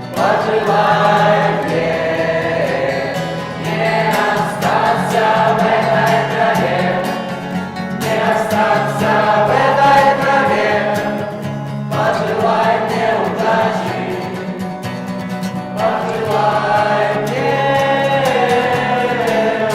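Several voices singing together over instrumental accompaniment, in phrases of about four seconds each.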